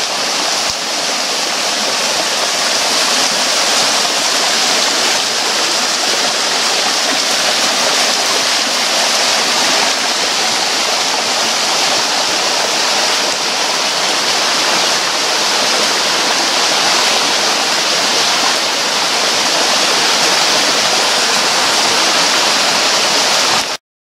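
Small waterfall, with little water in the river, spilling thinly down a steep rock face: a steady rush of splashing water. It cuts off abruptly near the end.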